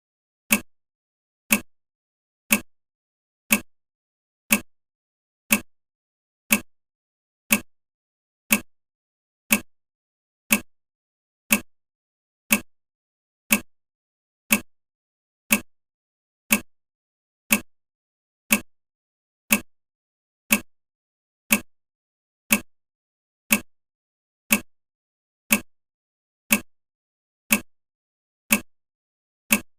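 Countdown timer ticking, one short sharp tick each second, marking off the seconds of the countdown.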